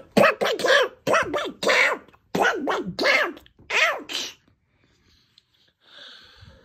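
A person's voice making a quick string of about eight short wordless character noises whose pitch swoops up and down. It stops about four seconds in.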